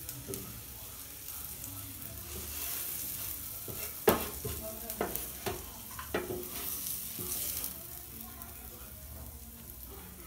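Butter and onion-tomato masala sizzling in a frying pan as a kulcha is pressed and turned in it. Sharp taps and scrapes of a metal utensil on the pan come over the sizzle, the loudest about four seconds in, and the sizzle dies down near the end.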